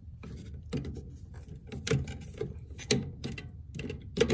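Irregular sharp clicks and knocks of hands working the plastic clip and fuel pump module at the fuel tank opening, while the clip is being unclipped before the pump is pulled out.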